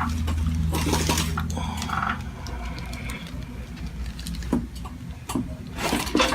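A steady low mechanical hum like a small motor running, with light clicking and clattering over it and a few sharper knocks in the second half.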